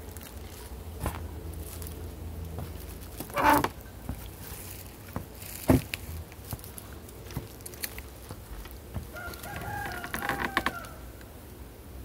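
A rooster crowing once, a call of about a second and a half that starts about nine seconds in. Scattered crunches and clicks from walking over dry leaf litter, with a short sharp click near the middle as the loudest sound.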